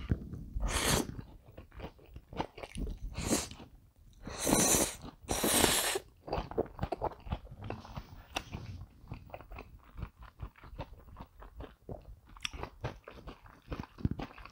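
Close-miked eating of cream buldak spaghetti: four loud slurps in the first six seconds, then steady wet chewing with many small clicks.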